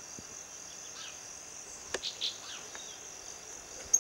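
A steady, high insect trill, with a few short, high bird call notes about two seconds in.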